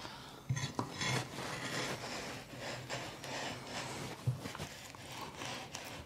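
Glass muller grinding plant pigment into a gum arabic binder on a glass slab: gritty rubbing and scraping of glass over the wet paste, with small clicks, as the watercolour paint is worked into a paste.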